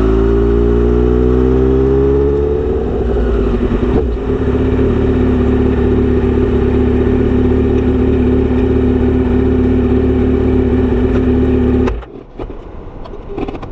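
Kawasaki Z900RS inline-four through a short straight-pipe aftermarket muffler, rising in pitch for about three seconds and then holding a steady note. The sound cuts off suddenly about twelve seconds in.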